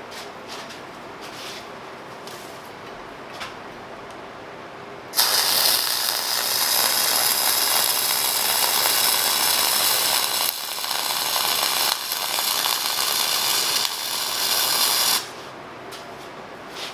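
Flux-core MIG welding on steel plate with a Millermatic 251 and .045 flux-core wire. The arc strikes about five seconds in and crackles steadily for about ten seconds, with a few brief dips, before stopping. Before the arc there are only a few faint clicks.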